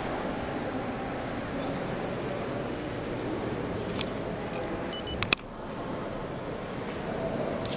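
Low murmur of visitors' voices inside a large church interior. From about two seconds in, short high-pitched electronic beeps sound about once a second, with a quick cluster of beeps near five seconds. Right after the cluster the background drops off abruptly for a moment.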